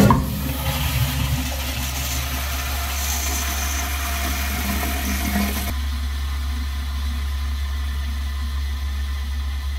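Flushmate 504 pressure-assist toilet flushing on a test after recalibration of its cartridge: a sudden loud pressurized whoosh of water that lasts about six seconds and cuts off abruptly, then a quieter steady hiss of water as the pressure vessel refills.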